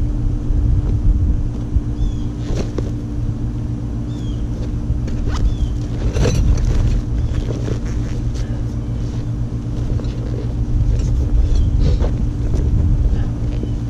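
Steady low rumble of wind on the microphone over a constant low hum, with a few brief knocks and rustles as a canvas tool roll of tent pegs and a mallet is handled and opened.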